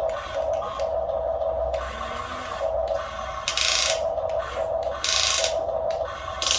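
Small electric motors and gearing of radio-controlled construction models whirring in short stop-start runs, with two louder rasping bursts partway through.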